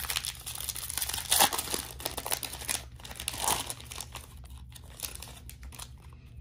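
Foil-style wrapper of a Panini Prizm basketball card pack being torn open and crinkled by hand, a dense crackling that is loudest in the first three seconds and then thins to fainter rustling.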